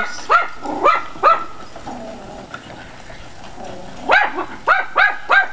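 Dog yapping, alarm barking to guard the house against the miniature horses. There are a few yaps in the first second and a half, a pause, then a quick run of about three yaps a second from about four seconds in.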